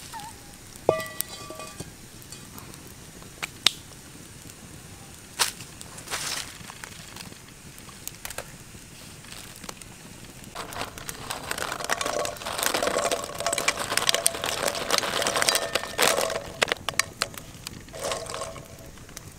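Quail eggs being swished and rubbed by hand in a pan of water: wet sloshing with the shells clicking against each other, dense from about halfway through. Before that, only a few single sharp clicks.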